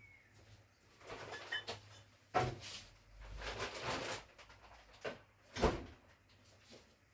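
Workshop handling noises: a few sharp knocks with stretches of scraping and rustling in between, the loudest knock about two and a half seconds in and two more a little after the halfway mark.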